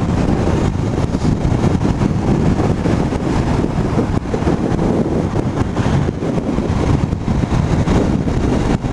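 Steady wind rushing over a motorcyclist's helmet microphone while riding, with the motorcycle's engine and road noise underneath.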